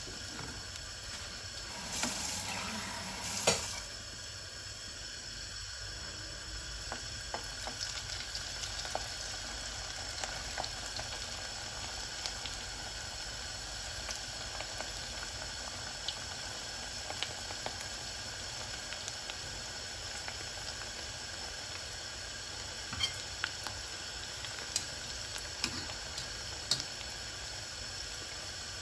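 Dough sticks deep-frying in hot oil in a pot, sizzling steadily with scattered pops and crackles. A few sharp clicks stand out, the loudest about three and a half seconds in.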